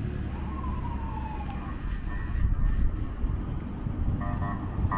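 An emergency-vehicle siren, its pitch falling over the first couple of seconds, over a steady low rumble of street traffic. About four seconds in, a pulsing, pitched tone starts repeating.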